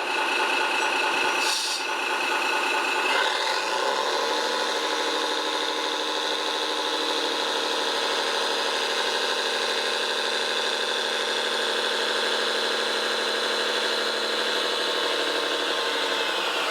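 Radio-controlled construction model's motor and drive running with a steady whine. It speeds up to a higher pitch about three to four seconds in, holds steady, then winds down near the end.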